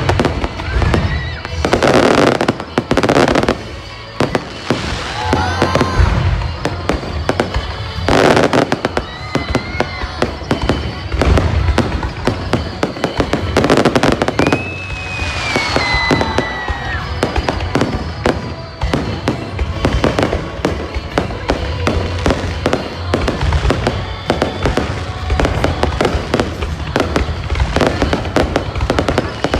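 Aerial fireworks display: a dense run of sharp crackles and pops over deep booms, with several big bursts. Whistling glides run through it, the clearest a long falling whistle about halfway through.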